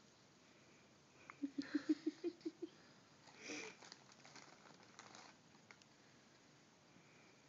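Newborn baby making a quick run of about eight short, low grunts about a second and a half in, followed a second later by a breathy sound.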